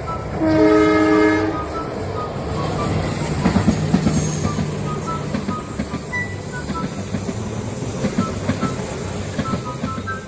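Train horn sounding one blast about a second long, then a passing train rumbling with a clatter of wheels over the rail joints.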